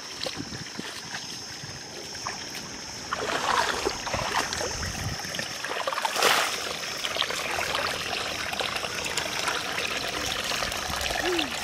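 Shallow muddy water trickling and splashing as hands work a fine-mesh net trap in it, with one louder splash about six seconds in.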